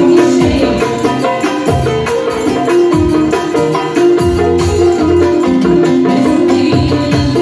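Haouzi-style music played live: an electronic keyboard carries the melody over a pulsing bass line, with a hand frame drum with jingles keeping the rhythm.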